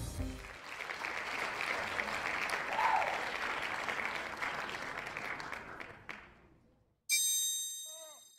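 Applause, a dense patter of clapping that fades out over about six seconds. About seven seconds in, a sudden bright ringing chime starts and dies away.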